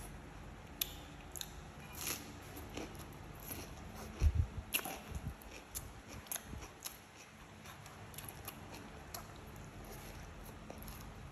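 A person chewing food, with scattered small crisp clicks. There is a low thump a little past four seconds in.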